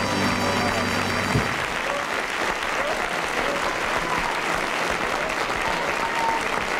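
The band's final held chord at the end of a comic song, breaking off about a second and a half in, then an audience applauding steadily.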